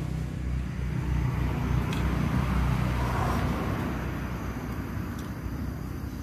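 A motor vehicle passing by: a low engine rumble that swells about three seconds in, then slowly fades.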